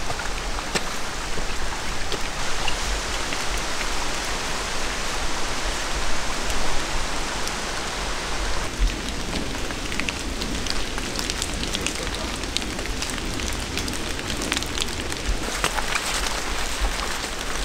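Steady rain falling, an even hiss with many sharp drop hits on top. About halfway through the hiss thins and the separate drop hits stand out more.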